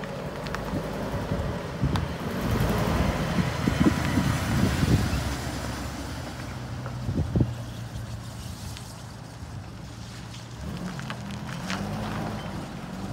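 Ford E450 Super Duty box truck's engine running as the truck drives past close by and pulls away. Wind buffets the microphone, loudest while the truck passes a few seconds in.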